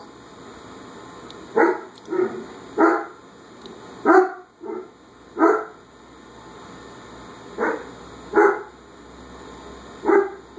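A dog barking: repeated short single barks at irregular intervals of about a second, with a longer pause midway.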